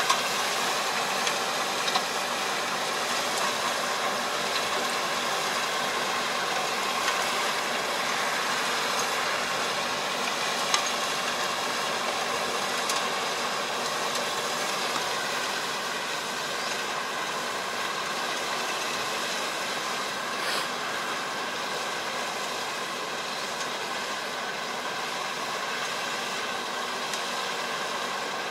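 Distant tractor engine running steadily while the tractor works a flooded rice paddy, heard as an even mechanical hum with a few faint clicks.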